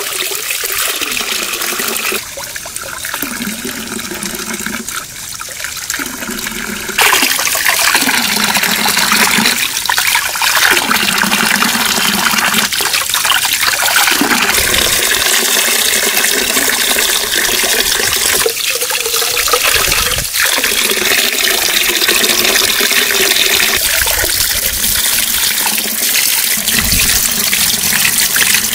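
Running water splashing and trickling steadily, with abrupt changes in level about two seconds and seven seconds in.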